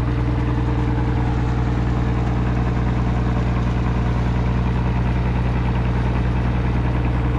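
Motorboat engine running steadily as the boat cruises, a constant low drone with a hiss of rushing water and wind over it.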